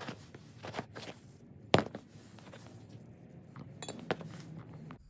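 Metal mounting brackets clinking and knocking as they are handled and set down on cardboard, a string of short knocks with the loudest about two seconds in, over a faint low hum.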